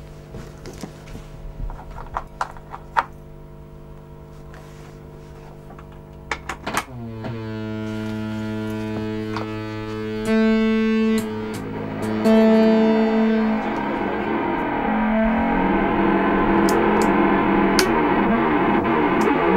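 Homemade electronic instrument switched on: a steady electrical hum with a few handling clicks, then about seven seconds in a tone sweeps down and settles into steady distorted droning notes that jump louder twice, breaking into a dense distorted buzz in the second half.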